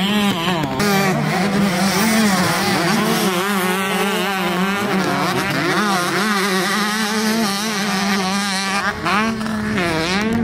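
Several motocross bikes racing at once, their engines revving, the pitch rising and falling again and again as the riders accelerate and back off.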